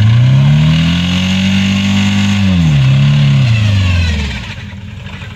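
Car engine revved hard and held at high revs, with a brief dip and recovery about three seconds in, then dropping back toward idle near the end. The engine is being run hard on purpose to kill it, and it sounds like it is choking itself while it smokes.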